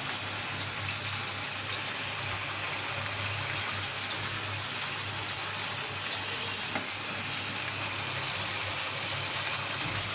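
T-bone steak sizzling steadily in butter and olive oil in a frying pan over low heat, with a steady low hum underneath and a light click about seven seconds in.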